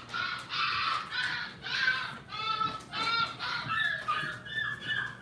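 Golden retriever puppies whining and crying: a run of short, high-pitched cries, about two a second, growing fainter near the end.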